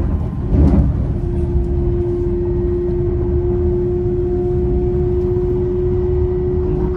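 Interior running noise of an LNER Azuma (Hitachi Class 800) passenger train at speed: a steady low rumble with a constant humming tone. A brief louder rush comes about half a second in.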